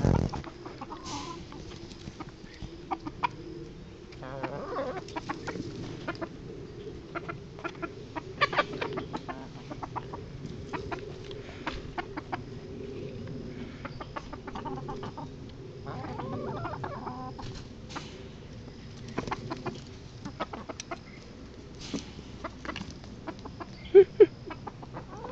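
A flock of backyard hens clucking steadily as they forage, with scattered short clicks and a few brief higher calls. There is a thump right at the start, and a short, louder call near the end.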